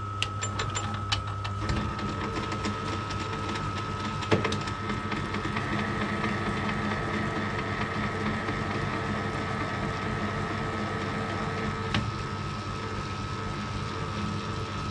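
Small metal lathe running steadily with the lead screw engaged, screw-cutting a 3/8" UNC thread at 16 TPI in a steel rod: a steady motor whine over the running gear train. A few clicks come in the first couple of seconds, and there is one sharp knock about four seconds in.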